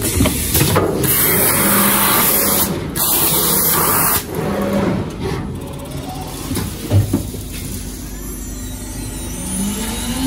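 Compressed-air hiss from a panel drilling machine's pneumatic clamps pressing the boards down as the cycle starts, loud for about four seconds with a short break, then a steady machine noise. Near the end a drill spindle motor winds up with a rising whine.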